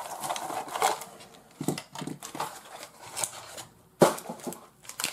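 Crinkling and rustling of a Sportsclix booster pack being opened by hand, with light clicks of the plastic figures inside and one sharp click about four seconds in.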